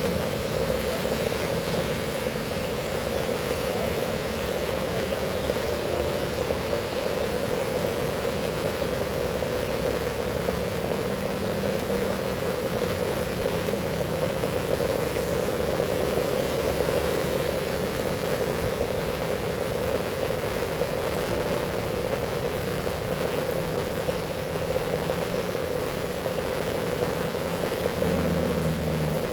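Heavy rain falling steadily, an even rushing hiss with no breaks. A low hum joins it briefly near the end.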